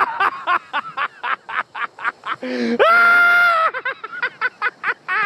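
Loud laughter in quick bursts of 'ha-ha-ha', broken about three seconds in by one long drawn-out cry.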